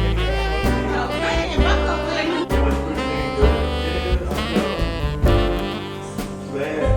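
Jazz background music with a horn melody over a steady drum beat.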